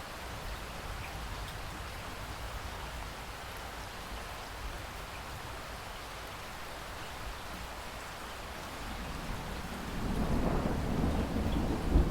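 Steady rain falling, with a low rumble of thunder building about three-quarters of the way through and a loud clap near the end.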